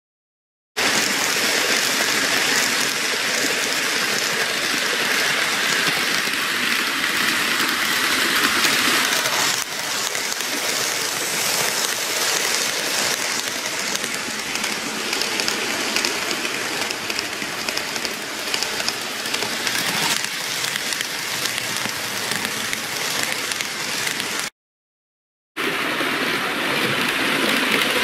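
N-scale model commuter trains running on the layout's track: a steady hiss of small wheels on the rails. It starts about a second in, softens a little about ten seconds in, and drops out for about a second near the end before resuming.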